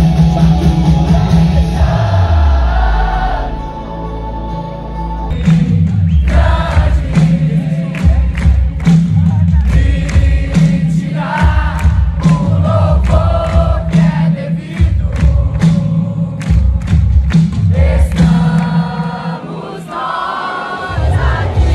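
Loud gospel music: many voices singing together over a band with a heavy, steady drum beat.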